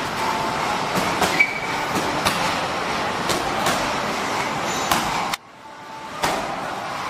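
Punches and kicks landing on Muay Thai pads: irregular sharp smacks, sometimes two or three in quick succession, over a steady rushing background noise. The background noise cuts out for under a second about five seconds in.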